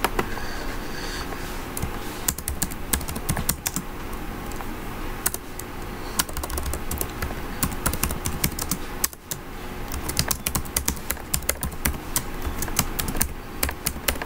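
Computer keyboard typing: quick runs of keystrokes, with a brief pause about nine seconds in.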